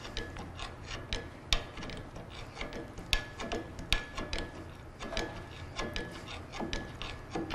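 Irregular metallic clicking of a ratcheting mechanism being worked, several clicks a second, over a steady low hum.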